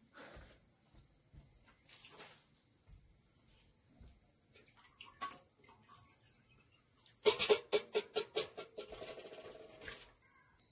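Crickets chirping steadily, a high, even trill. A few faint knocks come in the first half, and about seven seconds in there is a brief run of pitched calls.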